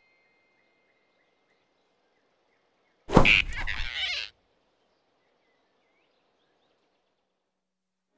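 Cartoon sound effect: one sudden, loud hit about three seconds in that dies away over just over a second, over faint outdoor ambience with tiny chirps.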